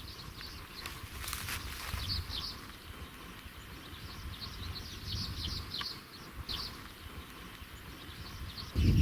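Outdoor birdsong: many short chirps and twitters from small birds, over a faint low rumble.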